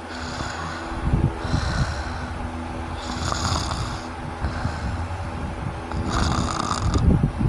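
A sleeping person snoring heavily, breath after breath, with a rough, fluttering rumble on the loudest snores, which the uploader gives as the sound of obstructive sleep apnea.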